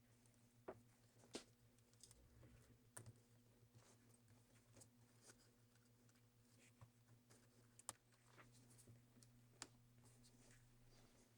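A few faint, scattered small clicks and taps of small parts being handled during laptop reassembly, over a low steady hum.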